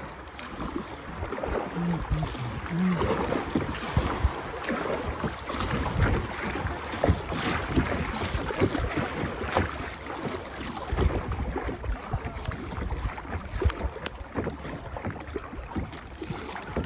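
Kayak paddling: the paddle blades dip and splash in river water, with wind buffeting the microphone.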